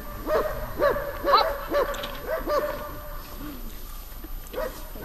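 A dog barking in a quick run of about two barks a second, easing off after about three seconds.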